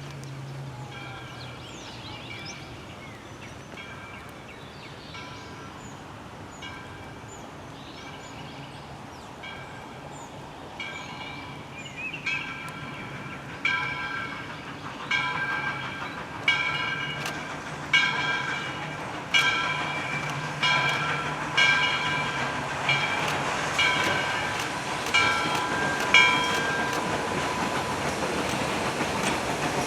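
Locomotive bell on Southern Railway 2-8-0 steam locomotive 630 ringing steadily, about one strike every second and a half, growing louder as the train approaches, with the rumble of the train building near the end.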